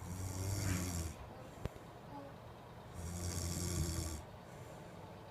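Snoring: two long snores about three seconds apart, each lasting about a second, a low drone with a breathy hiss over it. A short sharp click falls between them.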